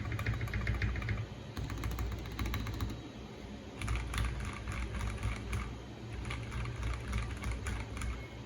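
Fast typing on a white Tofu60 mechanical keyboard with lubed and filmed Gateron Ink Black V1 linear switches: a quick run of keystrokes that eases off briefly about three seconds in, then picks up again.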